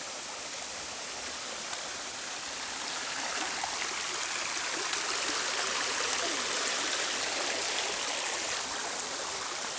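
Creek water rushing steadily over rocks at the top of a waterfall, a little louder through the middle.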